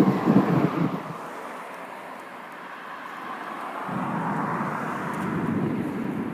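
A roll of thunder dies away in the first second, leaving a steady rain hiss. From about four seconds in, another low rumble swells and eases off again.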